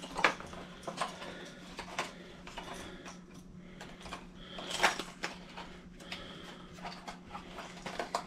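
Fishing-lure packaging being handled by hand: scattered clicks and rustles of plastic and card, with one louder crackle about five seconds in, over a faint steady low hum.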